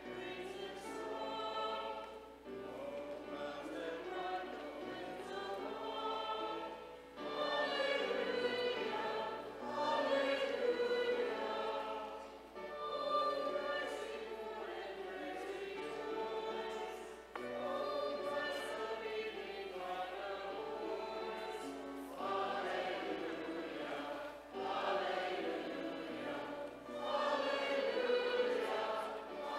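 A congregation singing together in unison phrases a few seconds long, with short breaks between the lines.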